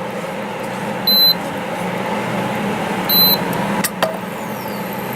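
Two short, high electronic beeps about two seconds apart over a steady hum, with a sharp click about four seconds in.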